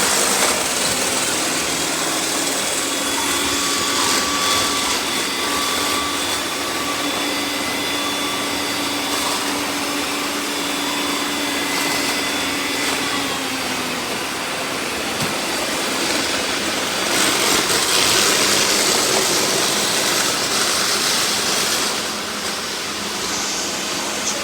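Several robot vacuum cleaners running at once: a continuous whirring hiss of fans and brushes with a few steady whining tones that stop about fourteen seconds in.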